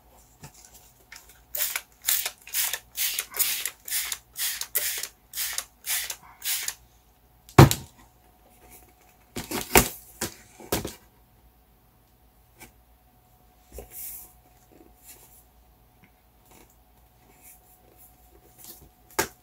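Trigger spray bottle of water misting wet acrylic paint, about ten quick squirts at roughly two a second, wetting the paint so it bleeds and runs. About halfway through comes a single loud knock, then a few more squirts.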